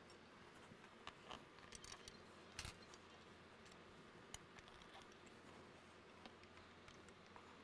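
Near silence with a few faint clicks and taps, the loudest about two and a half seconds in: hands threading bolts finger-tight on a motorcycle engine protection bar's mount.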